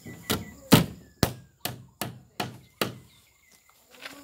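Hammer driving a nail into a plywood wall panel on a wooden frame: seven quick, sharp blows, about two or three a second, the second one the loudest, stopping about three seconds in.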